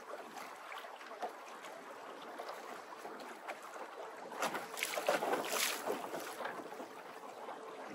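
Small boat under way through choppy water: waves slapping and splashing against the hull, with wind on the microphone. The splashing is louder for a couple of seconds around the middle.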